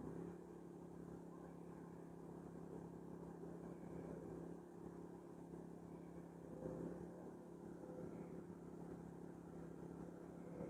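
GenMax GM2000i 2000-watt inverter generator running steadily with eco mode off, a faint, even low hum.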